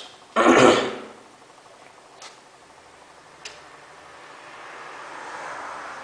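A short, loud throat-clearing sound about half a second in. After it comes only a quiet hum from the washing machine, which is not in its fast spin, with a few faint clicks and a soft swell of whooshing noise near the end.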